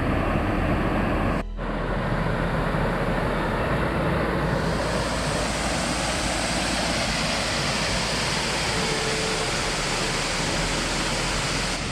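Waterfall rushing: a steady, loud, even roar of falling water, growing brighter about four and a half seconds in.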